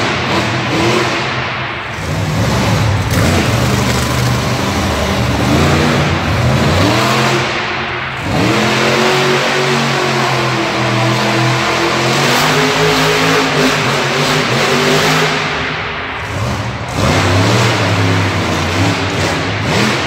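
Monster truck engines revving hard, the pitch climbing and dropping over and over as the trucks accelerate and ease off.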